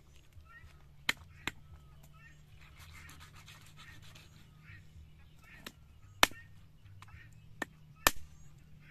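Six sharp knocks or clacks of a hard object at irregular intervals, the loudest two about six and eight seconds in, with a faint murmur between them.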